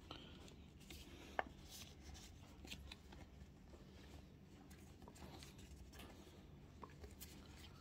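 Near silence with faint paper rustles and light clicks of Panini stickers and sticker packets being handled, with one sharper click about a second and a half in.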